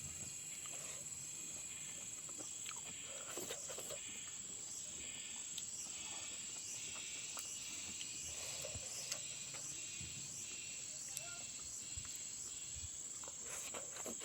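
Steady high-pitched chorus of crickets, with faint scattered clicks and soft smacking sounds over it.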